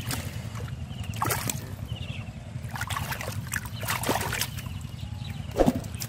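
A hand splashing and sloshing in shallow, muddy water among water hyacinth while feeling for small catfish. The splashes come irregularly, the loudest one shortly before the end, over a steady low hum.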